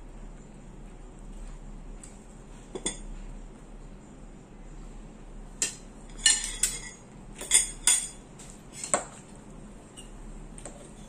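Metal forks and spoons clinking and scraping against plates and a metal bowl during a meal. About eight short, sharp clinks, most of them bunched in the middle.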